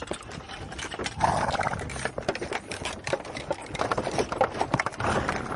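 Horse sounds: irregular clattering knocks of hooves, with a short breathy burst about a second in and another near the end.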